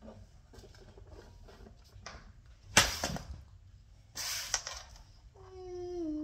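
Fidget toys being handled and set down on a wooden floor: faint small clicks, then a sharp knock about three seconds in and a rustle with a click a second later. Near the end, a child's short hum.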